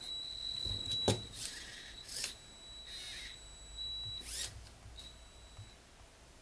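Small Circuit Cubes electric motor running under app control with a thin, high-pitched whine that starts, stops and restarts several times as it is switched. Plastic clicks and short rattles come from the LEGO gears and lever it drives.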